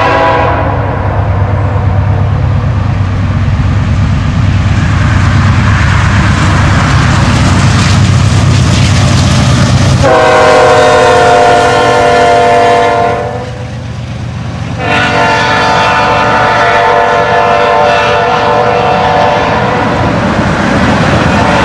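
CSX diesel freight locomotives rumbling past at close range. At about 10 s a locomotive air horn sounds a long blast, stops briefly about three seconds later, and sounds again for several more seconds.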